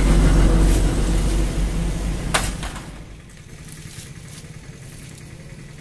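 A loud, steady low engine-like rumble with a hum, which drops to a much quieter background about three seconds in; a single sharp click sounds just before the drop.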